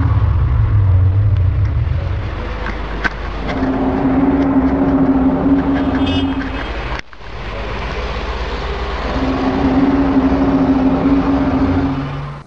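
Low, eerie droning hum of the kind reported as coming from the sky, rising and falling in long swells a few seconds each over a steady low rumble. It cuts out abruptly about seven seconds in and then picks up again.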